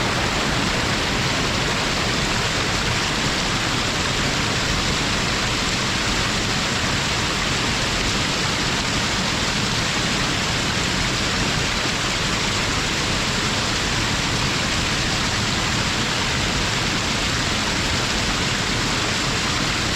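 A waterfall rushing steadily, its falling water and spray making an even hiss with no change throughout.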